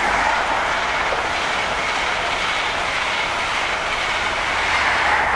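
Class 43 High Speed Train running through at speed: a steady rush of wheel and air noise from the passing Mark 3 coaches, swelling slightly near the end as the rear power car goes by.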